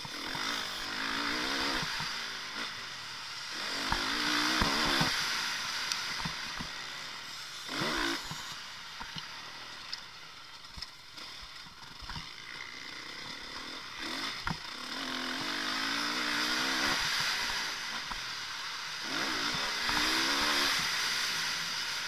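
Motocross bike engine heard from an onboard camera, revving up in repeated surges and dropping back off the throttle between them, with scattered knocks as the bike runs over the rough dirt track.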